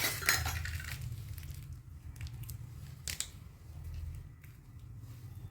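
Crinkling and rustling of plastic packaging in the first second, then a few light clicks and taps of small plastic toy pieces being handled, over a low steady hum.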